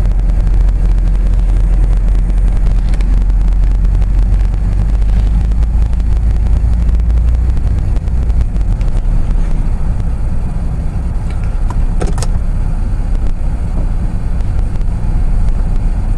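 2002 Toyota 4Runner heard from inside the cabin, moving slowly: a steady low engine and road rumble that eases about halfway through as the truck slows to a stop. A short click comes about three-quarters of the way in.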